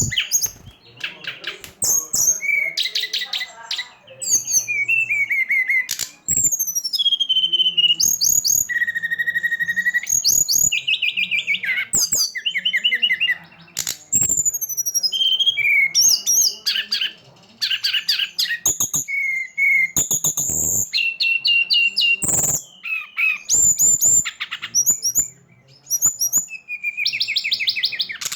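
A songbird singing a fast, varied song of chirps, whistled notes and trills in quick phrases, with short pauses between them. It is a lure recording of the kind played to prompt caged birds to sing.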